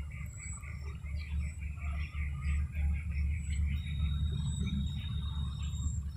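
Birds chirping in the background, rapid runs of short chirps, over a steady low hum.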